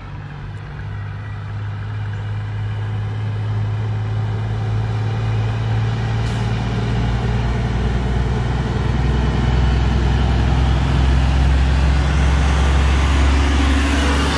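Diesel engine of an International Eagle semi-truck hauling a loaded flatbed trailer: a steady deep drone that grows louder as the truck approaches, with tyre and road noise rising as it comes alongside near the end.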